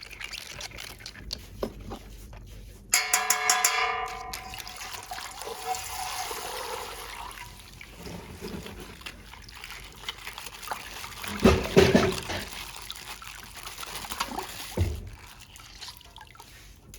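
Coloured water trickling and pouring out of a punctured plastic bag, with plastic being handled. There is a short squeaky tone about three seconds in, and a few knocks near the middle.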